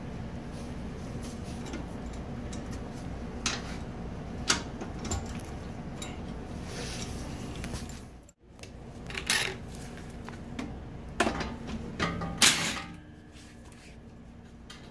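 Scattered metallic clinks and clicks of hand tools, a breaker bar with socket and a wrench, working on the nut and bolt at the strut's lower mount, over a steady low background hum.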